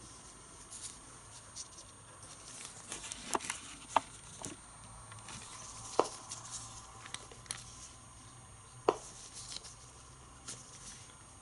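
Irregular sharp clicks from a DP-5VB Soviet radiation dose-rate meter, each click a detected particle, coming at a slow, random rate with a few loud ones among fainter ones.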